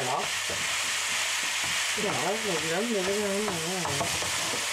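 Minced meat sizzling in a frying pan as it is stirred and broken up with a spatula, the spatula scraping in the pan. A brief wavering hum sounds in the middle.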